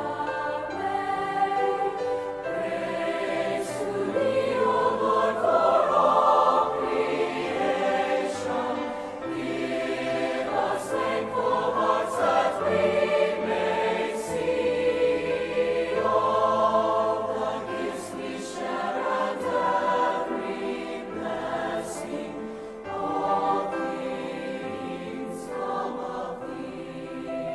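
A choir singing in sustained phrases, with steady low accompanying notes beneath the voices.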